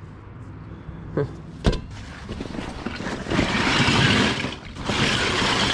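Canvas military duffel bag rustling and small plastic toys and Lego pieces rattling as hands dig through them, growing loud from about three seconds in. A single sharp knock comes a little before the two-second mark.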